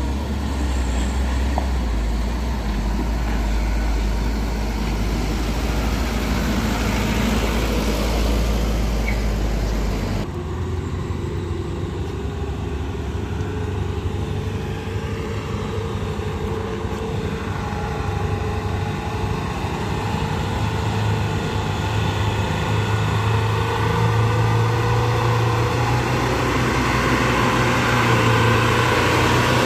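Truck engines running under load up a steep climb: first a light box truck with a deep rumble, then, after a sudden change, an old flatbed truck's engine, growing louder and a little higher in pitch in the last few seconds as it comes up the slope.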